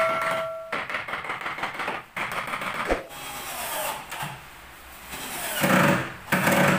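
Scraping and knocking on a wooden cabinet frame, then near the end a cordless drill runs in two short bursts against the wood. A ringing metallic tone stops within the first second.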